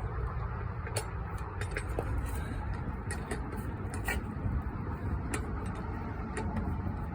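Scattered light clicks of a lug wrench on a car wheel's lug nuts as they are turned off, over a steady low rumble.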